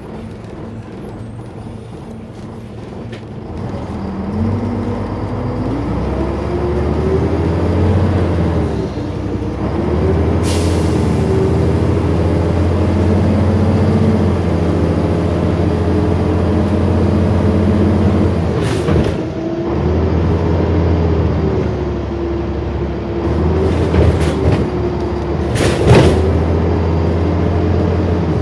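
Volvo Olympian double-decker bus heard from the upper deck as it pulls away, the engine note rising and dropping back several times as the automatic gearbox changes up. There are short hisses of air from the brakes a few times along the way.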